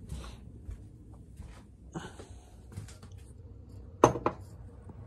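Faint rustle of handheld movement, then two sharp knocks about four seconds in as a clear drinking cup is set down on a kitchen countertop.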